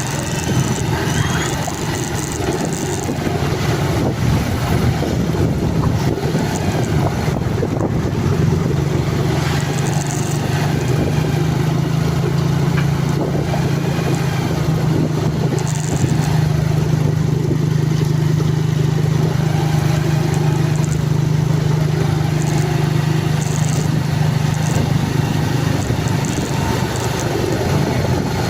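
A vehicle engine running steadily, with a low hum that grows stronger about eight seconds in and eases off near the end.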